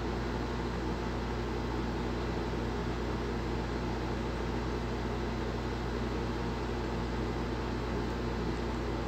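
Steady background hum and hiss with a low mains-like drone, unchanging throughout, with no other sound on top.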